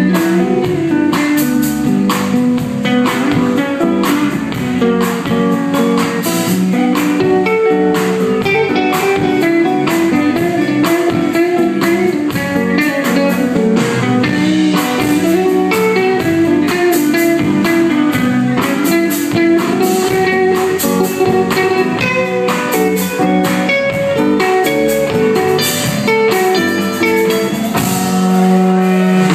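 A live band playing an instrumental break: electric guitar soloing over the band with a steady beat, in a bluesy style.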